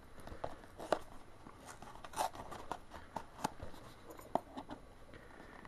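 Small cardboard blind box being handled and turned over in the hands: faint, scattered taps, scrapes and rustles of cardboard, with a few sharper clicks among them.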